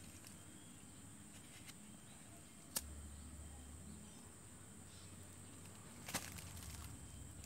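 Faint steady high-pitched insect drone, broken twice by a short sharp click, about three seconds apart.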